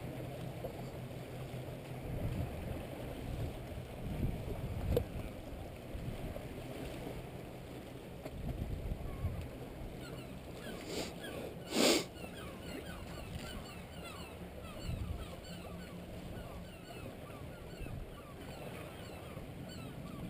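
Footsteps on wet shoreline rock with wind buffeting the microphone and the sea lapping gently. A sharp knock sounds about halfway through.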